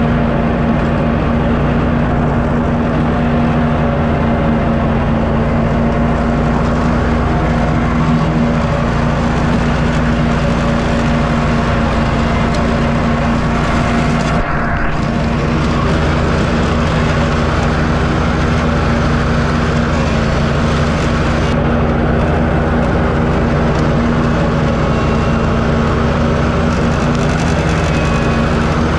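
Walker riding mower engine running steadily at an even pitch, with the mower deck cutting grass.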